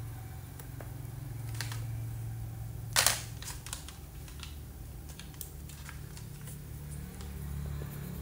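Crayons clicking against each other and their tray as one is picked out: one sharp clack about three seconds in, then several lighter clicks. A low steady hum runs underneath.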